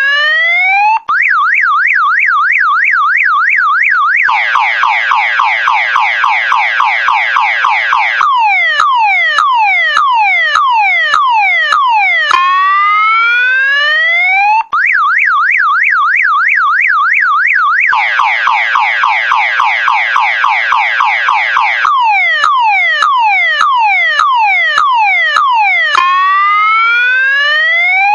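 Electronic multi-tone car alarm siren running through its cycle: a rising whoop, a fast up-down warble of about four swings a second, a dense run of rapid falling shot-like chirps, then slower falling chirps at about two a second. The whole sequence repeats about every 14 seconds.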